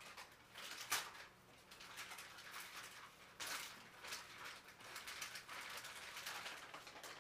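Plastic crinkling and rustling in short spells as a peritoneal dialysis solution bag is handled in its plastic overwrap, the loudest rustles about a second in and again about three and a half seconds in.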